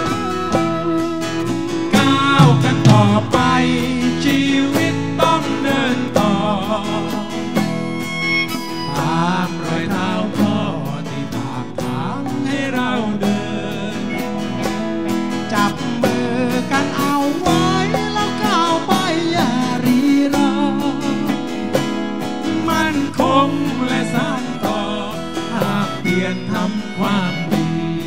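Live band music: an instrumental passage of a folk-rock song with guitar over a drum kit and hand percussion.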